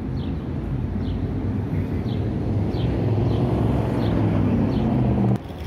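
City street traffic: a motor vehicle's engine rumble builds up and grows loud, then cuts off suddenly near the end. A short high chirp repeats about seven times over it.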